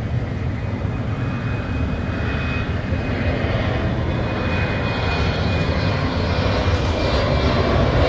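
Jet airliner engine noise across an airport apron: a steady rumble with a thin high whine, gradually growing louder.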